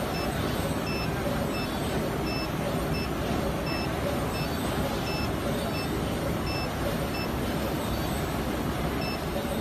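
Steady background hall noise with a short, high electronic beep repeating about every three-quarters of a second.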